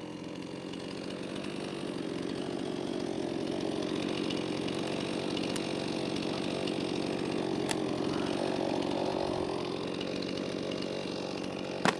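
Stihl MS311 two-stroke chainsaw running steadily under load, cutting through a white oak log.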